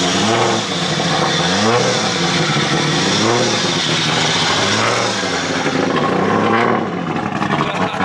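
Car engine revved up and down repeatedly, about once a second, running loud throughout.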